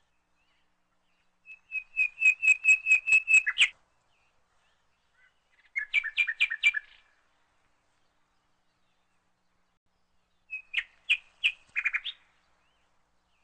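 A bird chirping in three short bursts of quick, evenly spaced high notes, about five a second, with silence between the bursts.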